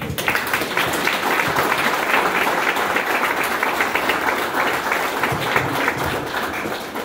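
Audience applauding: many hands clapping together, starting suddenly and fading away near the end.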